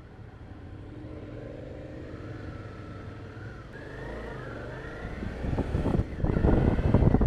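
Motorcycle engine running on the move, its pitch rising and falling about halfway through, with wind buffeting on the microphone that grows louder over the last couple of seconds.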